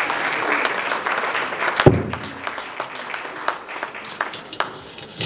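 Audience applauding, full at first, then thinning to scattered claps and dying away over the last few seconds. A single sharp thump about two seconds in.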